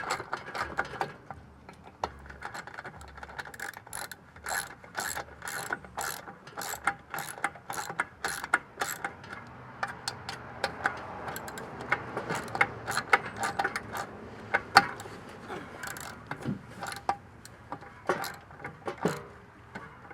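Irregular clicking and ticking of hand tools and metal furnace parts being worked during reassembly of the RV furnace.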